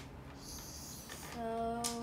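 A few faint plastic clicks as a toy is handled. About a second and a half in, a steady held tone starts, level in pitch, lasting under a second.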